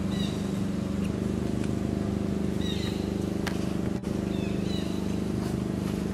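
A steady low hum like an engine running, with a fast flutter. Short high-pitched chirping calls come three times over it: about a quarter second in, near the middle, and again a little after.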